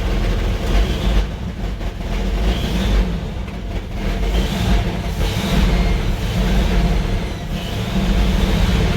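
1966 Ford F-100's V8 running steadily at idle, with a faint high squeak coming and going over it, which the owner wonders may be a vacuum leak.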